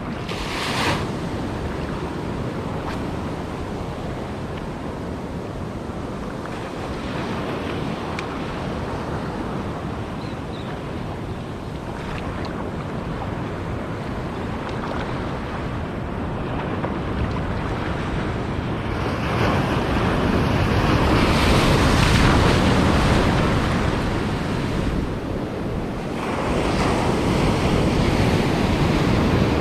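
Sea surf washing in, a continuous rush that swells louder twice in the second half as bigger waves break, with wind buffeting the microphone.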